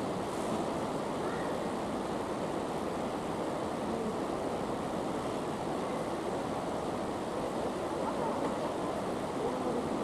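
Steady rushing background noise in a large indoor tennis hall, with faint voices near the end.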